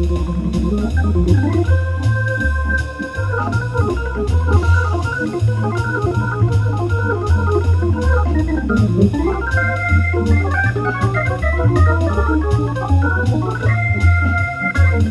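1966 Hammond C3 tonewheel organ played in a loose jazz improvisation: a steady low bass line under held chords and quick runs, with a click at many of the key strikes.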